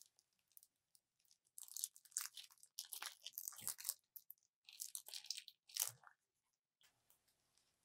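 Clear plastic piping bag crinkling and crackling as it is squeezed and handled, in two spells of crisp crackles of about two seconds each.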